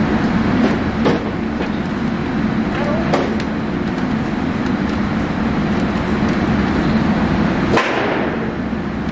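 Steady loud drone of an indoor shooting range's ventilation, cut by a few sharp cracks of gunfire from other lanes, the loudest near the end.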